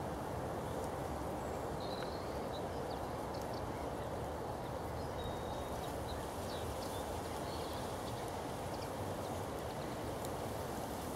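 Steady outdoor background noise, with a few faint, short high-pitched chirps now and then.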